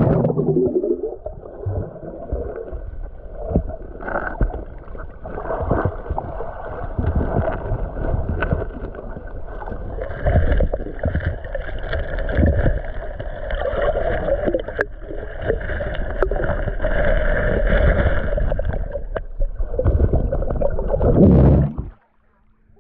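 Muffled water sloshing and gurgling with irregular dull knocks, as a hand works in the river under a boat ramp. It cuts off suddenly near the end.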